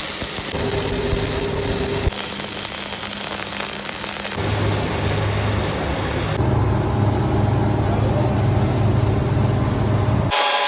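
Semi-automatic arc welding on a steel pipe: a steady crackle and hiss from the arc, joined about four seconds in by a steady low hum. The sound changes abruptly a few times, as between separate welding shots.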